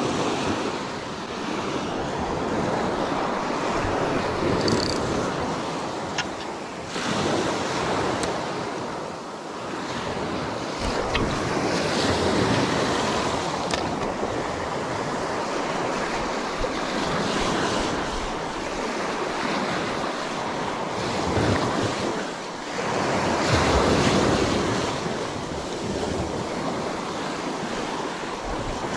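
Small sea waves breaking and washing up a sand-and-pebble beach, the rush swelling and easing every few seconds, with wind rumbling on the microphone.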